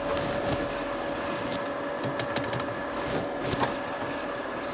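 A steady hum with a thin held tone, with light scattered clicks and knocks from metal parts being handled.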